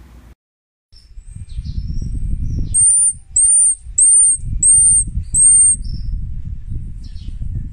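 Young marmoset giving a run of five short, high-pitched whistling calls, each rising and falling, with fainter high chirps before and after, over a low rumble.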